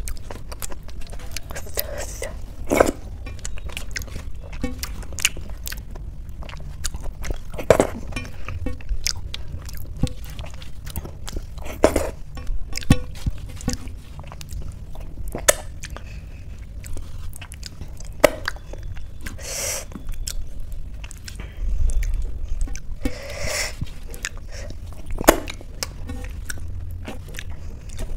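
Close-up chewing and mouth sounds of someone eating mashed boiled rice with potato and ghee by hand. Fingers squish and mix the soft food on a steel plate, with sharp clicks and smacks every few seconds.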